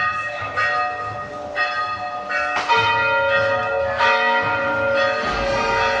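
Church bells tolling a requiem knell for the dead, rung by hand with ropes from inside the tower below them. There are several strikes of differing pitch, each one ringing on and overlapping the next.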